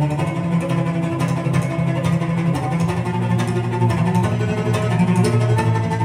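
Recorded string music led by cello, with deep held low notes, played through Teufel M200 speakers driven by a Harman Kardon HK 970 amplifier and heard through the room.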